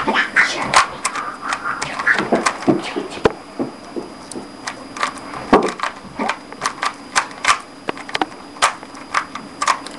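Plastic Rubik's Cube clicking as its layers are turned during a solve: sharp, irregular clicks, about two or three a second.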